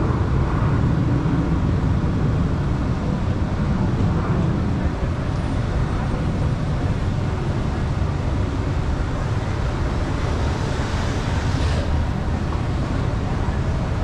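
Steady low rumble of a car driving through city streets: engine and tyre-on-road noise, with a brief rushing hiss near the end.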